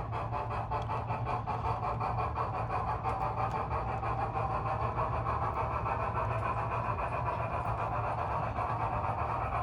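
Model steam locomotive of Tornado running with its electronic sound system chuffing steadily and rapidly, over a constant low hum and the rolling of the train on the track.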